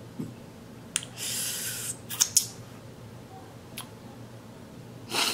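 Close-up mouth sounds of someone eating: a few sharp wet clicks of lips and finger-sucking, a breathy rush of air lasting under a second, and a short breathy burst near the end.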